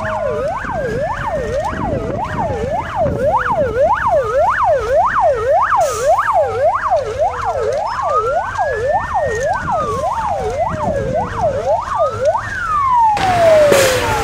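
Fire service vehicle sirens sounding together: one in a fast yelp, about three sweeps a second, over another in a slow wail that rises and falls. A rush of noise comes in near the end.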